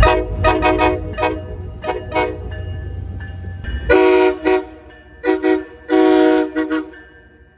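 Train locomotive air horn sounding a chord, first in a rapid series of short blasts, then after a cut about four seconds in, in a few longer blasts mixed with quick toots, over a low rumble.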